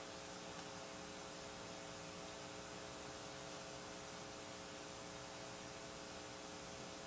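Faint steady electrical hum with hiss from the audio system, several steady tones over a flat noise, with no other sound.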